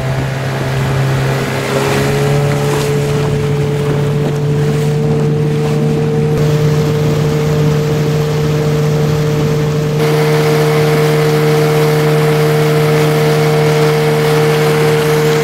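Tiller-steered outboard motor on a small aluminum boat running steadily at cruising speed, its pitch rising slightly in the first couple of seconds, over the hiss of water and wind.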